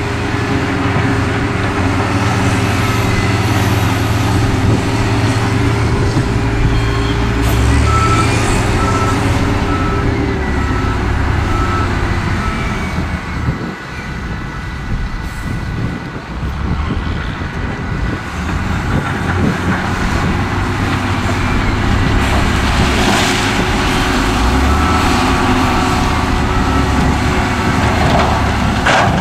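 Heavy diesel engines of a wheel loader and a dump truck running steadily, with a reversing alarm beeping in two short spells.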